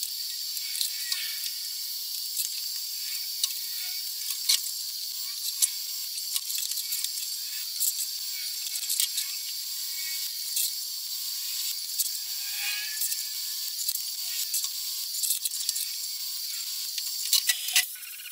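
Steel metalworking: scattered light metal clicks and taps as steel strips are clamped and TIG-welded, over a steady high hiss, with a few louder clicks near the end.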